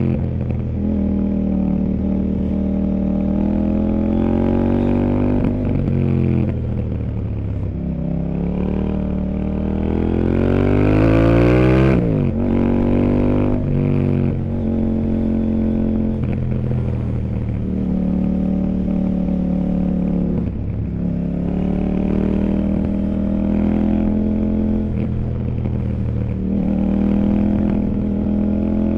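CFMOTO 800NK Sport's parallel-twin engine under way, revs repeatedly rising on the throttle and dropping back: one long climb in pitch peaks about twelve seconds in and cuts off sharply, followed by several shorter rises and dips.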